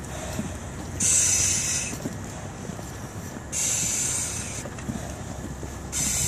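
Firefighter breathing through a Scott SCBA facepiece and demand regulator: a loud hiss of air with each breath, about every two and a half seconds.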